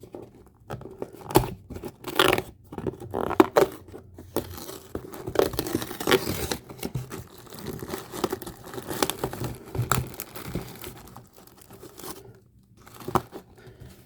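The large door of a cardboard advent calendar being torn open, with irregular tearing and crinkling of packaging and scattered sharp clicks, going quieter near the end.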